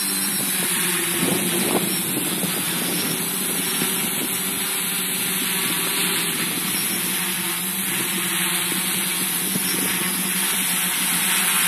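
Quadcopter's four Multistar brushless motors and propellers humming steadily as it hovers in GPS loiter mode, with wind noise over it.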